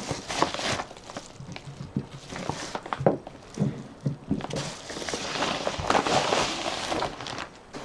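A bag of fatwood being handled: an uneven rustle of the bag with short knocks of the resinous pine sticks and pieces against each other.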